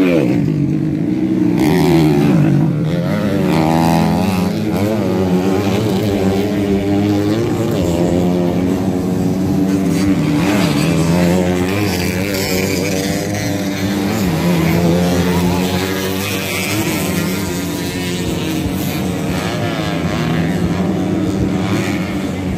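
Several grasstrack racing motorcycles running hard together, their engine pitch repeatedly rising and falling as they accelerate.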